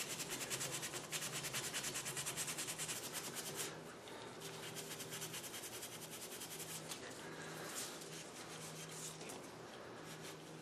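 Abrasive scouring pad scrubbing rust off a metal part of a Stanley hand plane in fast, even back-and-forth strokes. The strokes turn softer about four seconds in.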